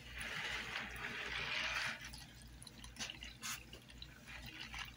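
Copper sulfate electrolyte poured in a thin stream into a plastic tub onto a bed of iron filings, splashing steadily for about two seconds, then thinning to a trickle with scattered drips.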